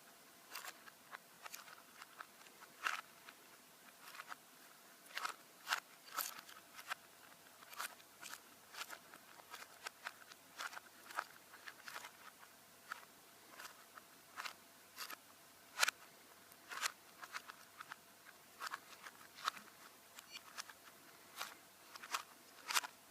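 Plastic Rubik's Cube being twisted by hand, its layers clicking and clacking irregularly as the faces turn, one to three sharp clicks a second.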